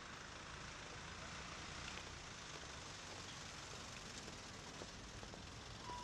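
Faint street ambience: a low, even hum of distant traffic.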